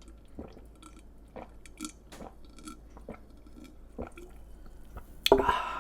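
Close-mic chewing with wet, squishy mouth sounds and small crunchy clicks of someone eating. Near the end a sudden, much louder sound cuts in briefly.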